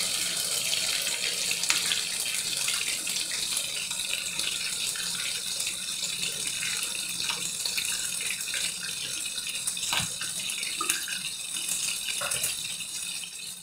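Oil frying in a pan on a lit gas burner: a steady sizzling hiss, with a low hum underneath and a few light clicks.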